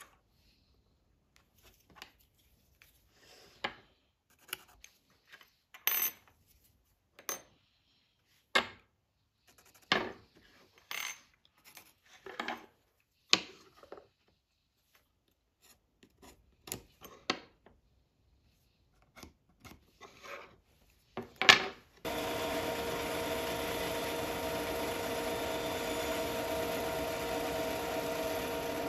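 Brass pen tubes, a pencil and a wooden pen blank handled and set down on a wooden tabletop: scattered clicks, taps and knocks, the loudest just before the change. About two-thirds of the way in a bandsaw is running with a steady hum, cutting through the end-grain pen blank held in a cutting jig.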